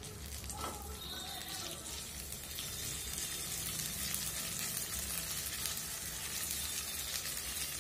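Ginger and garlic paste sizzling in hot oil in a frying pan, moved around with a spatula. The sizzle grows slightly louder as it goes.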